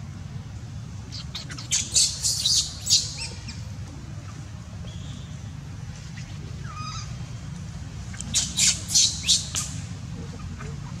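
Baby macaque screeching in two bouts of sharp, high-pitched squeals, one about two seconds in and another near the end.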